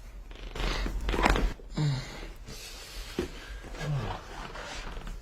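A person groaning on a chiropractic table: two short, falling moans about two seconds apart, after a loud breathy rush about a second in.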